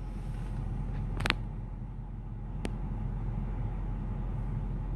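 Steady low vehicle rumble heard from inside a truck cab, with a sharp click about a second in and a fainter tick a little before the middle.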